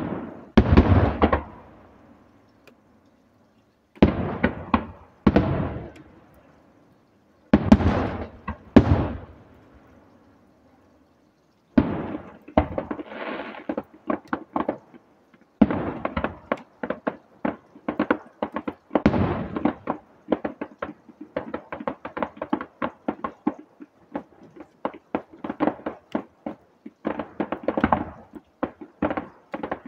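Aerial firework shells bursting in quick groups of loud bangs, with silent gaps between the groups at first. From about twelve seconds in the bursts become a fast, continuous run of bangs and crackling.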